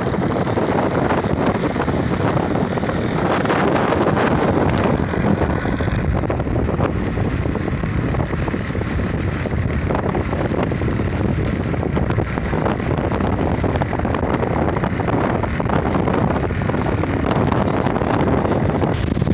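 Steady engine and road noise of a moving vehicle, with wind buffeting the microphone.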